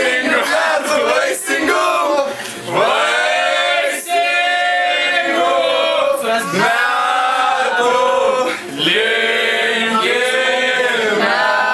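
A group of people, men's voices strongest, singing a birthday song together without accompaniment, in phrases of drawn-out notes with short breaths between them.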